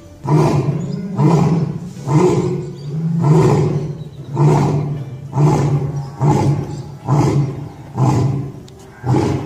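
Male African lion roaring: a bout of about ten loud calls in a row, roughly one a second.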